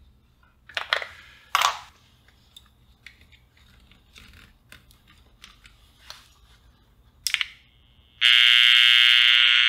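The back cover of a 1969 Sony 2R-29 pocket transistor radio clicks off and AA batteries are pressed into place, with a few sharp clicks and knocks. About eight seconds in, the radio comes on with a sudden, loud, steady, harsh buzzing tone from its speaker: the 'bad sound' fault it came to the bench with.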